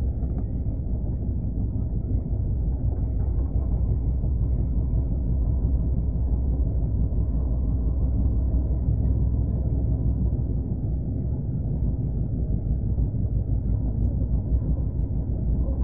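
Steady low rumble of a passenger train running at speed, heard from aboard the coach.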